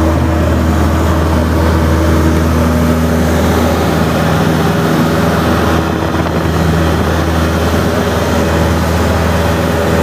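Light single-engine propeller airplane's engine running loud and steady during the takeoff roll, heard from inside the cabin.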